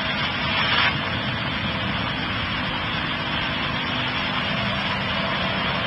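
Steady jet engine noise from a Boeing 777-300ER's GE90 turbofans at approach power, as the airliner comes in on short final with its gear down. A brief burst of hiss sits over the first second.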